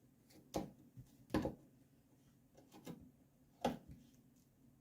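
A few short, scattered clicks and knocks as a hand tool grips and twists small nails out of a wooden screen door frame.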